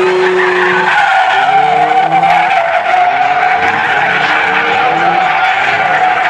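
A car doing donuts with heavy wheelspin: its tyres squeal continuously. The engine is held at a steady high pitch for about the first second, then revs rise again and again.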